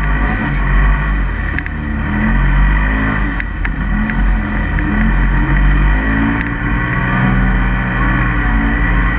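Polaris RZR side-by-side's engine running as it drives through deep powder snow, the revs rising and falling several times with the throttle. Heard from inside the open cab, with a steady rushing noise and a few sharp clicks.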